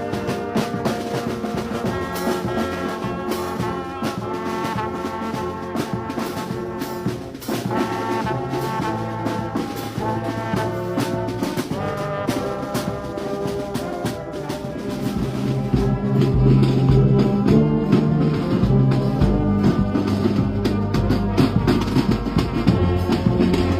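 Brass band playing, with trombones and trumpets carrying the melody. About two-thirds of the way through, the low end grows louder.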